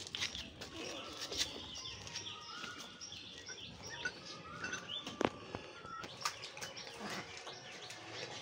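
Birds chirping and twittering in the background: many short, high chirps and brief whistled notes, with a few sharp clicks among them.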